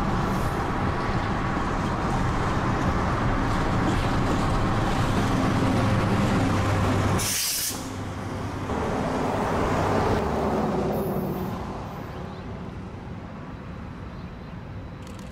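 Freight train rolling past with the steady rumble and clatter of tank-car wheels on the rails. A brief hiss comes about seven seconds in, and then the diesel locomotive is heard running as it goes by. After about eleven seconds the sound falls away to a quieter, distant rumble.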